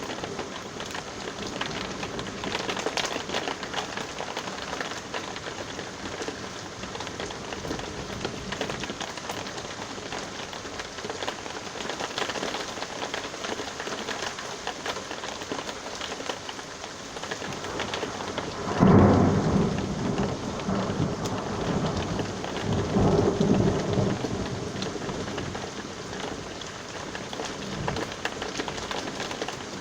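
Steady rain falling, with a sudden clap of thunder a little past halfway through that rumbles on for several seconds, swelling again a few seconds later.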